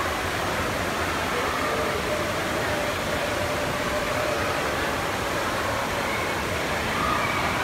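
Steady background hubbub of a large indoor hall, with faint distant voices now and then.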